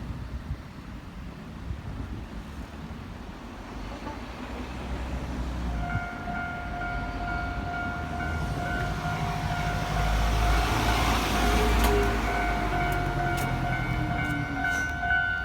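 Keikyu electric train running past on the line, its rumble building to a peak about ten seconds in, with a falling whine and wheels clacking over rail joints. About six seconds in, the level crossing's warning alarm starts sounding as a steady two-note tone and keeps going.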